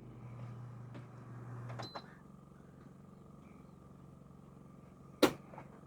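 A steady low hum cuts off about two seconds in, with a short high electronic beep and a click, as an RV rooftop air conditioner is switched off at its control panel. A sharp click comes near the end, over a fainter steady hum that keeps running.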